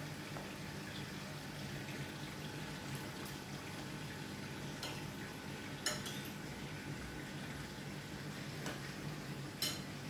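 Aquarium water circulating: a steady bubbling trickle over a low hum, with two sharp clicks, one a little past halfway and one near the end.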